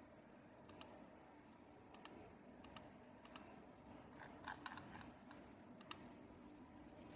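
Faint, scattered clicks of a computer mouse, about six spread out with a quick double near the middle, over quiet room hiss.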